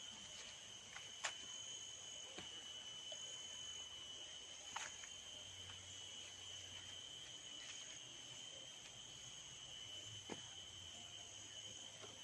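Faint, steady high-pitched insect chorus holding one even tone, with a few faint sharp clicks scattered through it.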